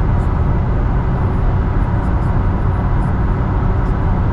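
Steady low rumble of a vehicle driving: engine and road noise.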